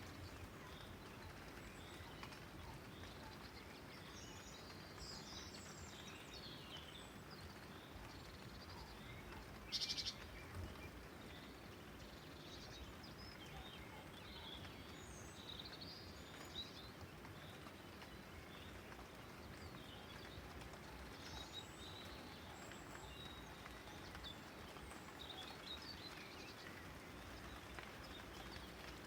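Faint, steady hiss of light rain with scattered bird chirps throughout, and one brief sharp rattle about ten seconds in.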